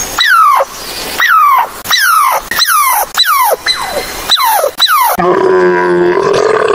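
A squirrel calling in a rapid series of high calls, each sliding sharply down in pitch, about two a second. About five seconds in it gives way to a dromedary camel's low, gurgling grunt.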